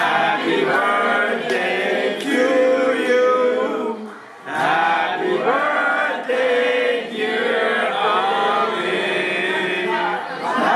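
A group of voices, mostly male, singing together in unison, with a short break about four seconds in.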